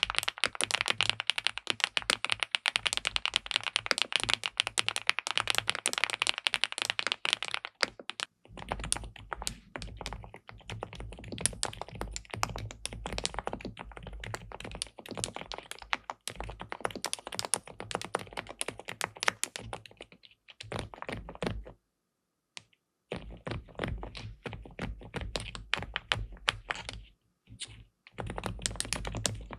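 SPM PL87W (Mongdol 87) tenkeyless mechanical keyboard with linear switches and a polycarbonate plate, typed on quickly in a steady stream of keystrokes. The typing is loud and sharp for the first eight seconds or so, then turns softer and deeper, with brief pauses about 22 and 27 seconds in.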